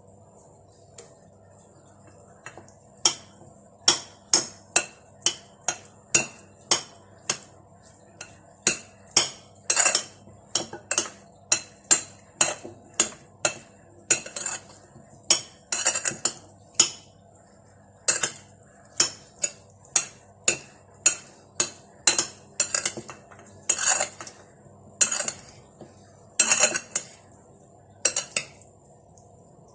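Kitchen knife chopping on a cutting board: a run of sharp knocks, roughly two a second, with short pauses between runs, as vegetables are diced into small cubes.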